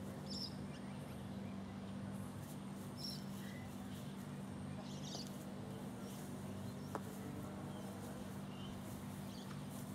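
Quiet backyard ambience: a steady low hum with a few short, high bird chirps scattered through, and a single sharp click about seven seconds in.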